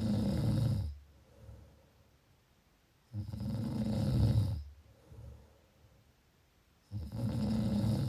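A sleeper snoring: three low snores, evenly spaced about three and a half seconds apart, each lasting a second or so, with faint breaths between them.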